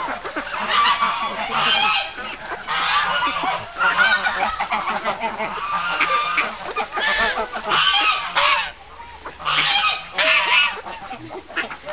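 Domestic geese honking over and over while being hand-fed: about ten loud calls with short pauses between them.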